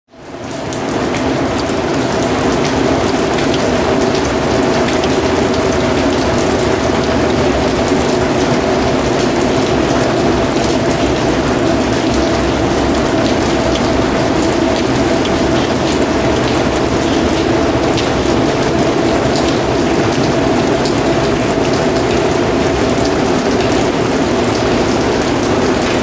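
Heavy rain falling steadily, a dense hiss with many sharp drop ticks. It fades in over the first second.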